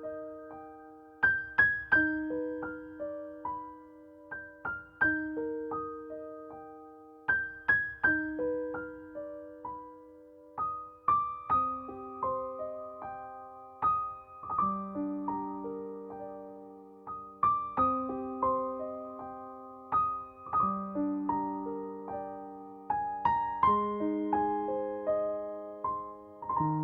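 Slow, calm solo piano music: single notes struck one after another in gentle repeating broken-chord patterns, each ringing and fading, moving to lower notes about halfway through.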